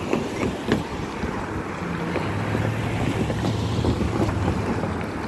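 Long intermodal freight train of empty stack cars rolling past close by: steady rumble and rush of steel wheels on rail, with a few sharp clicks early on from wheels over rail joints and a steady low hum in the middle.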